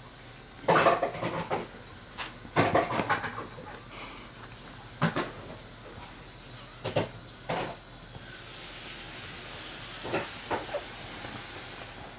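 Irregular short rustling and scuffling sounds as Maine Coon kittens and an adult cat play-wrestle on a cushion, over a steady low hiss.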